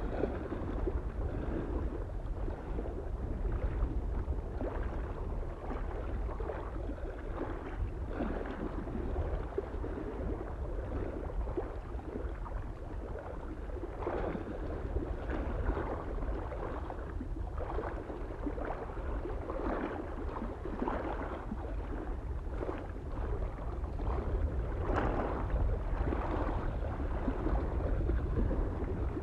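Small waves lapping irregularly against a lake shore, with soft wind and a steady low wind rumble on the microphone.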